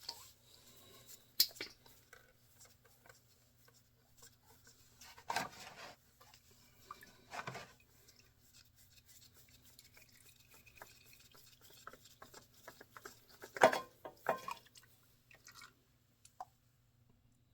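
Scattered clinks, scrapes and rustles of hands and tools working under a motorcycle while the oil filter is removed, with a few louder scraping knocks and quiet stretches between them.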